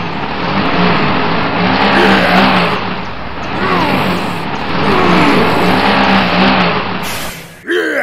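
Tractor engine revving and straining with a steady rushing noise as its wheels spin in mud: the tractor is stuck. Several times the pitch sweeps down.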